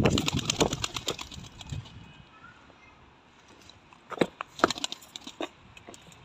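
Clattering steps and knocks on corrugated roof sheeting: dense clicking for the first couple of seconds, then quiet, then a few sharp single knocks around four to five seconds in.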